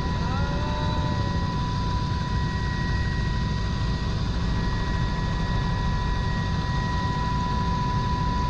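Steady cabin drone of a small aircraft in flight: a constant low engine and airflow rumble with a steady high whine over it.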